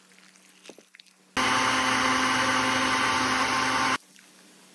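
Countertop blender running at full speed, puréeing chopped apple, pear, onion, garlic and ginger with broth. It starts abruptly about a second and a half in, runs as a loud, steady whir with a constant hum for a little over two seconds, and cuts off suddenly.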